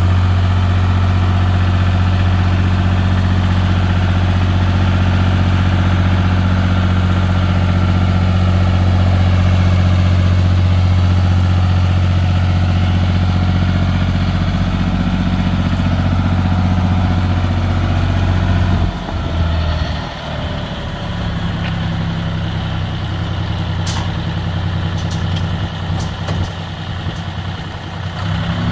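John Deere utility tractor's diesel engine running at a steady, even speed as the tractor drives. About two-thirds of the way through the sound drops off suddenly and carries on weaker and less even as the tractor moves off.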